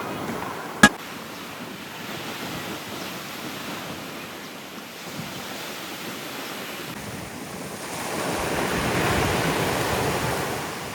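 Sea waves washing onto a shore, with wind on the microphone. Near the end one wave swells up louder and then recedes. A single sharp click comes about a second in.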